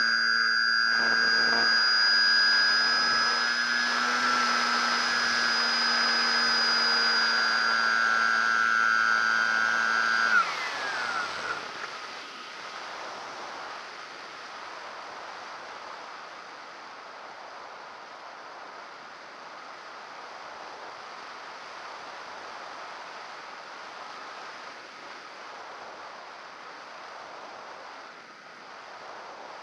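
A model aircraft's motor and propeller run at a steady high whine, picked up by the camera on board. About ten seconds in, the motor is cut and the pitch drops away as the propeller winds down, leaving a steady rush of air as the plane glides.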